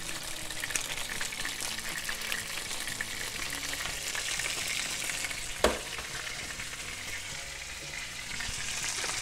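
Floured basa fillets sizzling steadily as they pan-fry in oil, white wine and lemon, the sizzle swelling a little midway and again near the end. A single sharp knock sounds a little past halfway.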